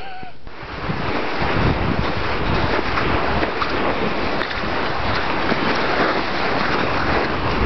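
Steady rushing hiss of a seated glissade down a snow slope: snow scraping under the sliding body and boots, with wind buffeting the microphone. It cuts in about half a second in.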